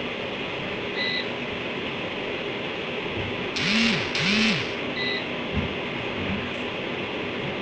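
Steady background hiss with a short electronic beep about every four seconds. Near the middle come two brief rising-then-falling voice-like sounds with a burst of hiss, followed by a single click.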